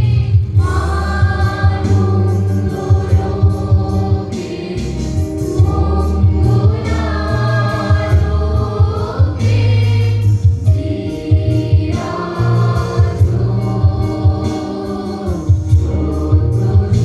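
A large mixed chorus of women and men singing a Bengali folk song together through microphones, over a steady low beat.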